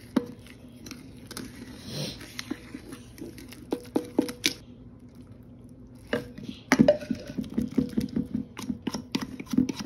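Wet, squishy clicking of fingers mashing milk-soaked kibble into puppy mush in a stainless steel puppy feeding pan. It goes quiet for about a second and a half past the middle, then picks up again more densely.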